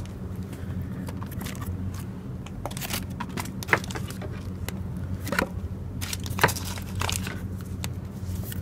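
Plastic food packaging rustling and clicking as hands rummage through rubbish in a bin, with sharp clicks now and then. A steady low hum runs underneath.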